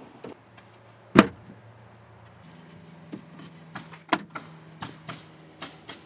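Clicks and knocks from a truck's plastic center console being put together by hand: one loud snap about a second in, then a run of lighter clicks in the second half, over a faint steady hum.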